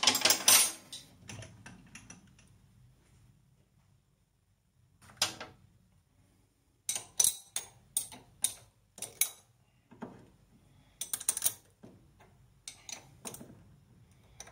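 Scattered metallic clicks and clunks from hands working the controls and tooling of a stopped metal lathe, coming in small clusters, with a brief louder clatter right at the start.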